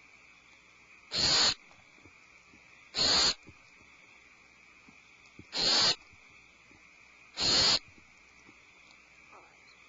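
Barn owl giving four harsh hissing calls, each under half a second long, about two seconds apart.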